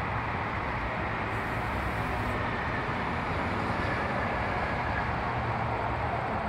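Steady outdoor background rumble, an even noise with no distinct events.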